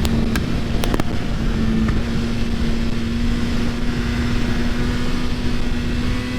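2022 Suzuki Hayabusa's inline-four engine running at steady high revs, its pitch climbing slowly, under heavy wind rush over the microphone. A few sharp clicks come in the first second.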